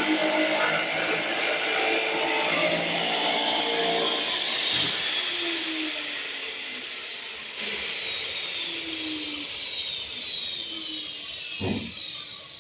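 A power tool's motor running loudly, then switched off about five seconds in, its whine falling slowly in pitch as it spins down.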